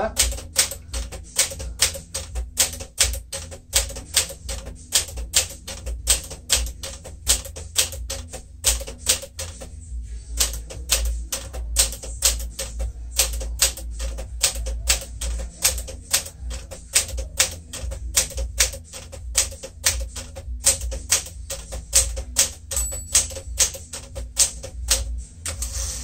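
1959 Smith-Corona Sterling manual typewriter typed on steadily, its keys and typebars clacking at about four strokes a second, with a short pause about ten seconds in. Near the end a bell dings, the margin bell warning that the carriage is nearing the end of the line.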